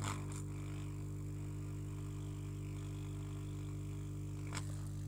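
Hot air rework gun's blower running with a steady hum while it melts the solder to seat a 2.2-ohm surface-mount resistor on a motherboard. A light click comes right at the start and another about four and a half seconds in.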